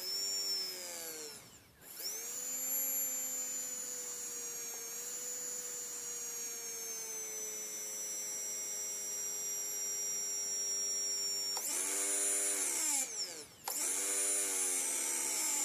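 A small electric motor running with a high whine, switched off and on: it cuts out after about a second and a half, starts again and runs steadily for about ten seconds, then stops briefly and restarts near the end. The owner suspects the motor is bad.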